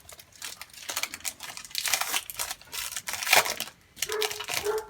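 A trading card pack wrapper being torn open and crinkled by hand, in irregular crackling bursts that are loudest a little past the middle.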